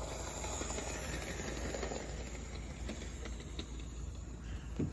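Toy model train running along its track: a steady hiss and rumble of the motor and wheels on the rails, with a single knock near the end.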